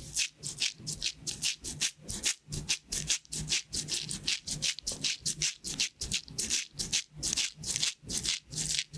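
Pins of a pin-art toy sliding and rattling in their frame as it is tipped back and forth: a run of rattling swishes, about two or three a second.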